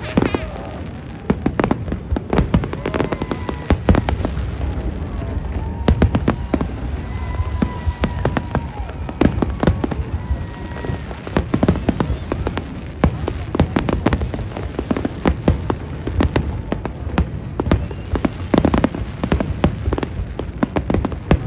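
Fireworks display: a dense, irregular run of bangs and crackles over a constant low rumble.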